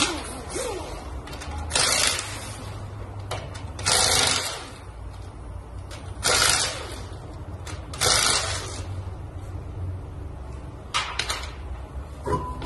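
Pneumatic impact wrench loosening wheel lug nuts in four short bursts about two seconds apart, each about half a second long, over a steady low hum of shop machinery.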